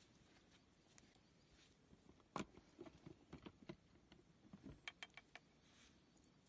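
Faint, scattered clicks and light taps from cookware being handled over a campfire, with a sharper click about two and a half seconds in.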